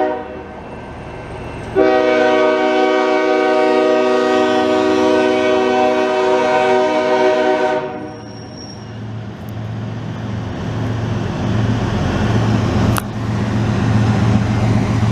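Canadian Pacific diesel freight locomotive's multi-note air horn: the tail of one blast at the start, then one long blast of about six seconds, sounded for the level crossing. After the horn stops, the locomotive's diesel engine and the train rumble steadily as it nears and passes.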